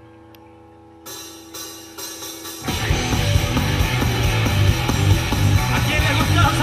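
Live rock band starting a song: a held electric guitar chord rings quietly, three drum and cymbal hits come about a second in, and about two and a half seconds in the full band comes in loud with drums, electric guitars and bass.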